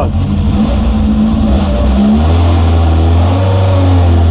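Carburetted tuned four-cylinder engine of a Lada rally car pulling away in first gear at low revs, heard inside the stripped, roll-caged cabin. The engine note dips and picks up again about two seconds in, then runs steadier and a little louder.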